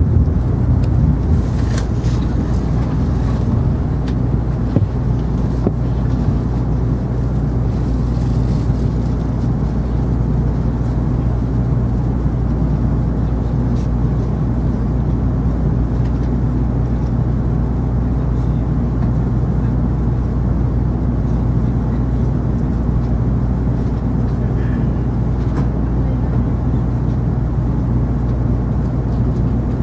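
Steady low hum and rumble inside an N700 series Shinkansen passenger car at a station platform.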